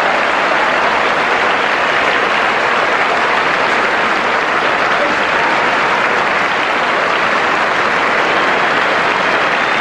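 Large cricket-ground crowd applauding steadily, greeting a wicket that has just fallen to a catch in the outfield.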